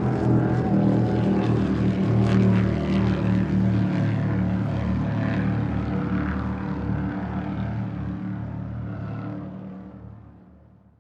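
Speedboat engine running with a steady drone, dying away over the last few seconds.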